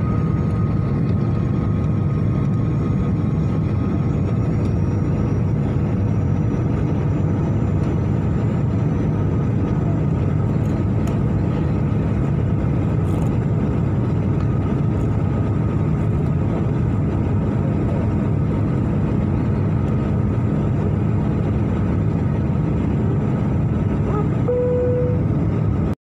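Steady jet engine and airflow noise inside a jet airliner's cabin, heard from a window seat in flight. A short faint tone sounds just before the end.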